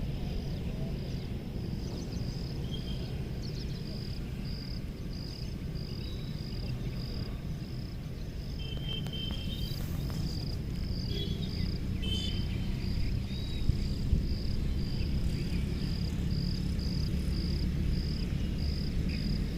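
A cricket chirping steadily in evenly spaced high pulses, over a low rumble of outdoor noise.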